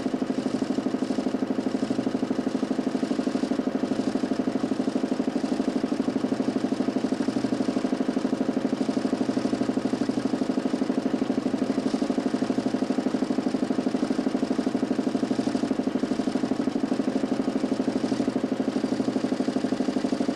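DC motor spinning a homemade 40 cm plywood Nipkow disc in a mechanical television. It makes a steady drone with a fast, even pulsing.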